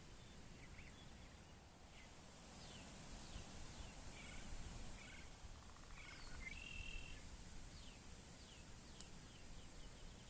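Faint forest ambience: birds calling with many short chirps and quick falling whistles, over a steady high hiss. A sharp click sounds about nine seconds in.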